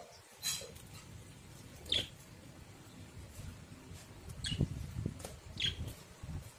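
Budgerigars giving short, high chirps, four in a few seconds, over soft low rustling.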